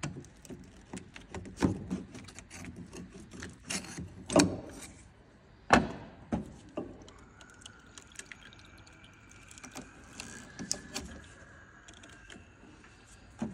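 Irregular clicks, knocks and light metallic clatter of tools or parts being handled, with a louder knock about a third of the way in. A faint steady high whine comes in about halfway and runs to near the end.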